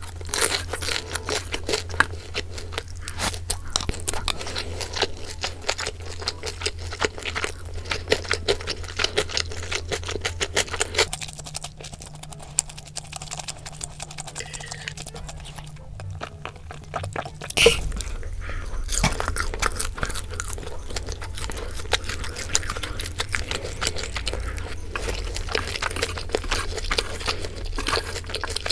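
Person chewing crunchy boneless sauced fried chicken, a dense run of crisp crunches that eases off for several seconds in the middle and starts again after a sharp knock.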